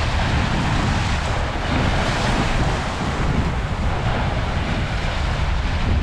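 Choppy water washing and splashing against shoreline boulders, the wash swelling and easing as waves come in, with a heavy wind rumble on the microphone.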